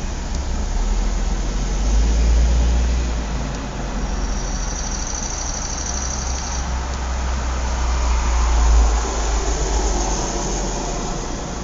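Outdoor suburban ambience: a steady low traffic rumble that swells twice, about two seconds and nine seconds in, as vehicles pass. A high trilling buzz runs for about two and a half seconds in the middle.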